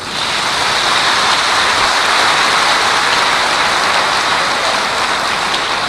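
A large audience applauding: a loud, steady wash of clapping that breaks out suddenly as the speaker pauses and eases slightly near the end.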